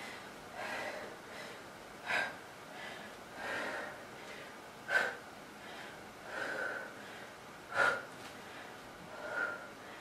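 A woman breathing hard while doing push-ups: a breath about every one and a half seconds, short sharp ones alternating with longer, softer ones.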